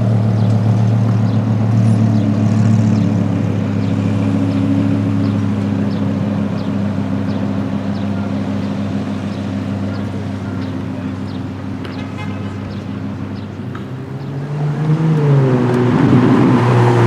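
A car engine running steadily at low revs with a deep drone, fading slightly, then revving up and growing louder near the end.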